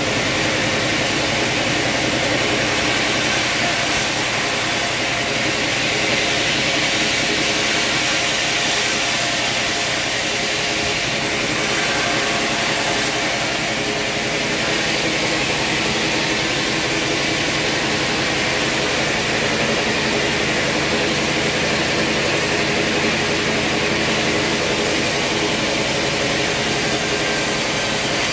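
Large vertical band saw mill running steadily: a constant machine hum of several steady tones with a hiss above it, unchanged throughout.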